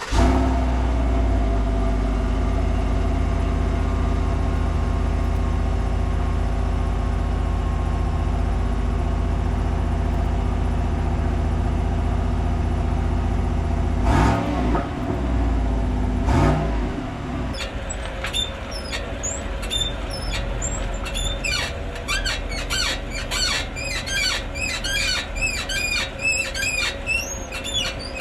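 GMC Sierra 1500 pickup engine starting and idling, with two brief revs about halfway through. Soon after, a fast, irregular series of high-pitched squeaks sets in over the idle: the truck's cold-weather squeak.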